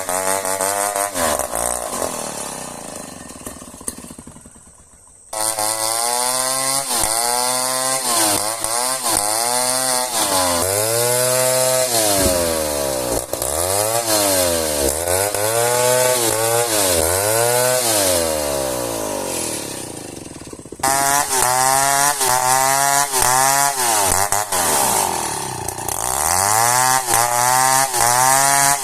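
Chainsaw cutting into a seasoned merbau hardwood log, its engine pitch rising and falling over and over as it works through the wood. It fades away about four seconds in and comes back suddenly a second later, then drops and returns suddenly again about twenty-one seconds in.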